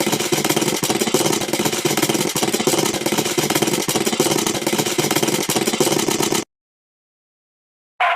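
Loud, harsh rattling noise, dense with rapid clicks, that cuts off abruptly about six seconds in and leaves dead silence.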